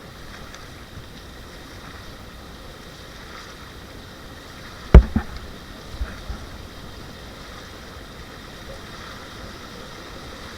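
Steady rush of river water around a paddled inflatable raft, with a sharp knock about halfway through followed by a few fainter knocks.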